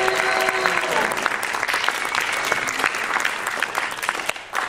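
Audience applauding, over the last second of music that fades out early on. The clapping thins out near the end.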